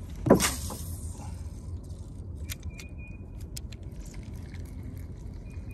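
Wind buffeting the microphone in a steady low rumble. There is a loud sudden rush about a third of a second in, then scattered light metallic clicks and a faint high whine.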